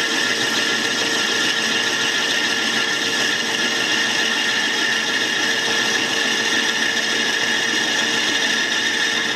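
A vacuum cleaner running steadily to draw off dust while a metal lathe bores out a Tufnol (resin-bonded fabric) gear blank with a boring bar. The result is a loud, even noise with a steady whine in it.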